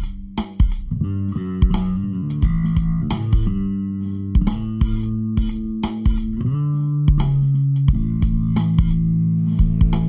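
Instrumental background music: guitar and bass guitar playing held notes that change every second or two over a steady drum beat.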